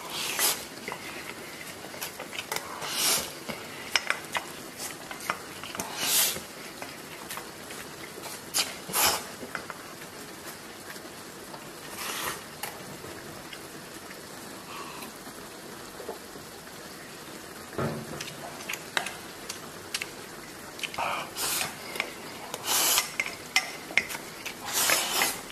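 A pot of instant noodles and pork belly being stirred. A utensil scrapes and clinks against the pot every few seconds, over the steady hiss of the simmering pot.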